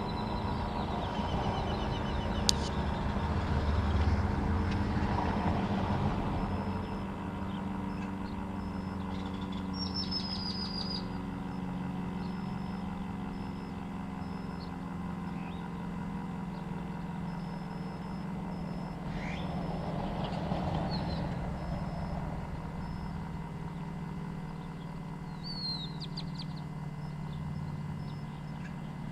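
Street ambience: a steady low engine hum with vehicles passing, swelling twice, and a few short falling bird chirps, plus one sharp click about two and a half seconds in. No siren sounding.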